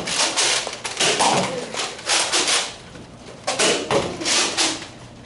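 Nerf Rival foam-ball blasters firing during a game: a string of about six short, sharp bursts, bunched in twos and threes.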